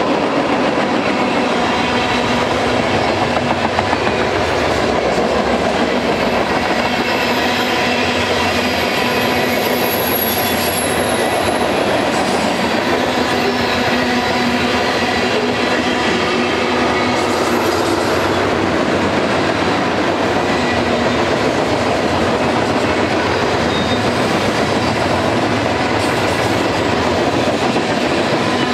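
Freight cars of a long mixed freight train (tank cars, covered hoppers, boxcars) rolling past close by: a steady rumble and clatter of steel wheels on rail. Thin high-pitched wheel squeals come in about nine to twelve seconds in and again around eighteen seconds.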